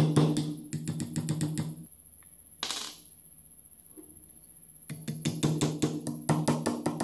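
Background music with a fast drum beat, dropping out for a few seconds in the middle before starting again.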